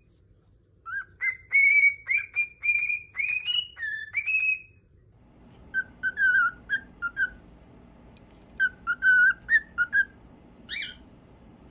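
Cockatiels whistling their song: first a run of short, clear whistled notes, several a second, some sliding up. After a break, another cockatiel whistles a lower string of quick notes, ending with one brief call near the end.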